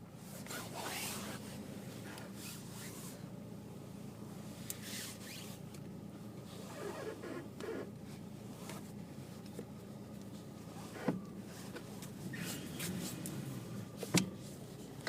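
Lada Priora squeaking and creaking as the steering wheel is turned, in irregular drawn-out squeaks, over a steady low hum. Two sharp knocks come near the end, the second the loudest.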